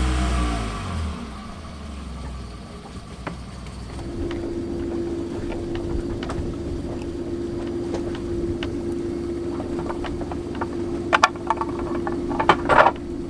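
A small yacht's engine running, then throttled back about a second in, its pitch dropping and its sound falling away to a lower rumble. A steady hum follows, with a few sharp clicks and knocks near the end.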